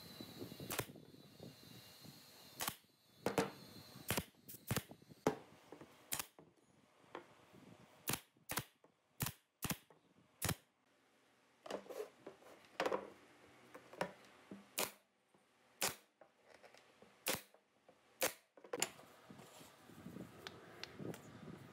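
Pneumatic brad nailer firing into wooden boards, a sharp snap with each brad driven. About a dozen and a half shots come at uneven intervals and stop a few seconds before the end.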